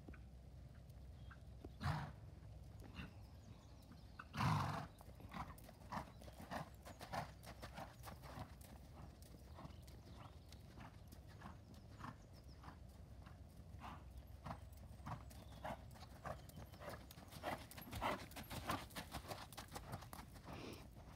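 A horse's hooves striking a sand arena surface in a steady, repeating rhythm of short, soft beats. A louder sound lasting about half a second comes about four and a half seconds in.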